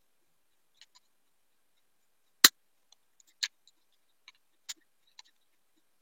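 A few sharp clicks and taps of scissors working on a small die-cast toy car, the loudest about two and a half seconds in, with fainter ticks after it.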